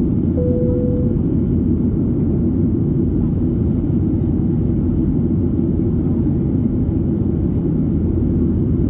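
Steady cabin noise of a Boeing 737-800 in flight, a dense low rumble of engines and airflow heard from a passenger seat. A short single steady tone sounds about half a second in.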